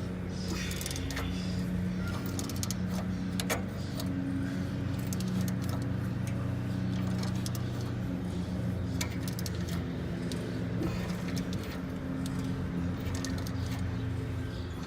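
Metal hand tools clinking and rattling, sockets and wrenches at work on a vehicle's front-end bolts, over a steady low mechanical hum.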